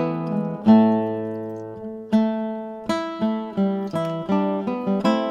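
Background music on acoustic guitar: plucked notes and chords that ring out and fade, with a strongly struck chord about a second in.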